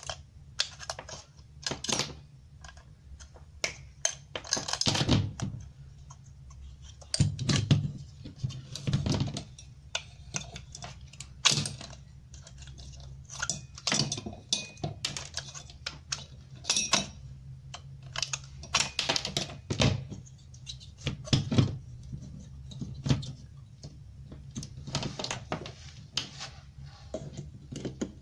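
Cutting pliers snipping and prying at copper coil leads inside a thin sheet-metal box, with irregular sharp metallic clicks, snips and clinks, over a low steady hum.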